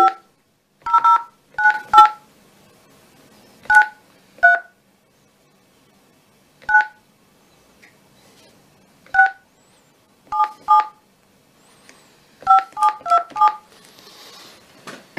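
Touch-tone phone keypad dialing a number: more than a dozen short two-tone beeps, one per key press, at an uneven pace, with a quick run of presses near the end.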